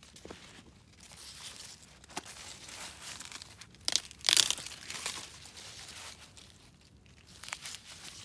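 Corn leaves and husks rustling and crackling as a gloved hand grips an ear of corn and snaps it downward off the stalk, with the loudest crack about four seconds in.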